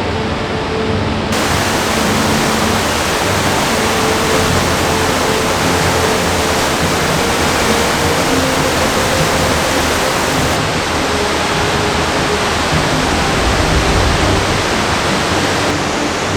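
Loud, steady rushing roar of a large limestone-gorge waterfall in heavy flow, swollen by recent rain.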